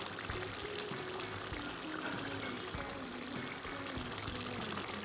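Soft background music, a slow melody of single notes, over a steady hiss.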